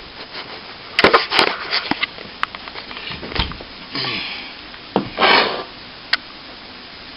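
A plasterer's trowel or scraper making a series of short scraping strokes across setting plaster, with a few sharp clicks of the blade. This is the scraping-back stage, taking the patch plaster down flush over the back-blocked hole in the plasterboard.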